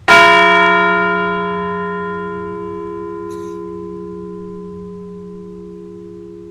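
A bell struck once and left to ring, its tone fading slowly. It is tolled once in honour of each deceased veteran as his name is read.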